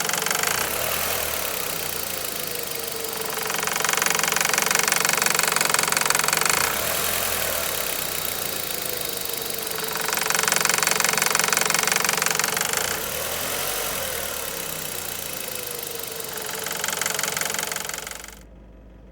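2001 Volkswagen Beetle's 1.8-litre turbocharged four-cylinder engine knocking, revved up and held three times and settling back between revs. The sound cuts off sharply near the end.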